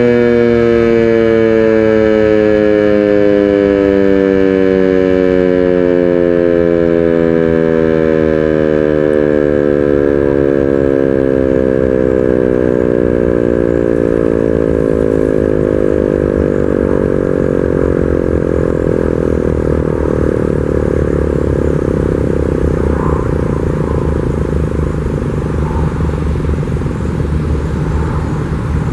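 American Signal T-121 outdoor warning siren winding down after its motor is cut: its tone slides slowly and steadily lower as the rotor coasts, sinking into a low hum by the end, under a steady low rumble of background noise.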